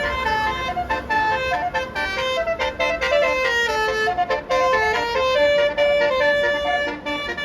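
Bus telolet horn (Basuri musical multi-tone horn) playing a tune of steady notes that step up and down in quick succession, over a low engine and traffic rumble.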